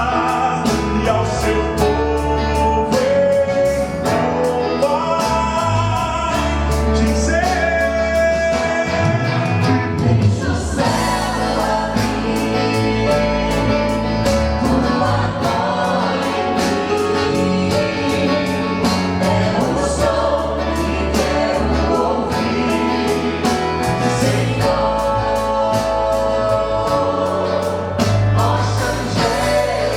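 Vocal group singing a gospel song in harmony over instrumental accompaniment with a steady beat.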